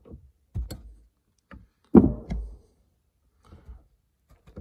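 Scattered metal clicks and knocks of a wrench working the 10 mm bolt on a car battery's negative terminal clamp, with one loud thump about two seconds in.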